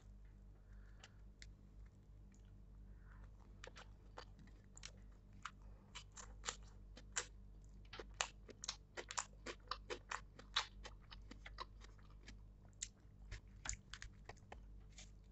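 A person chewing butter-toasted pav soaked in bhaji close to the microphone: a dense run of small crisp mouth clicks and crunches, thickest in the middle, over a faint steady low hum.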